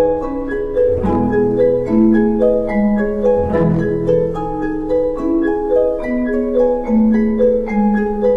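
Chamber orchestra music: a passage of held, overlapping notes changing about once a second, with softer plucked-sounding notes over them.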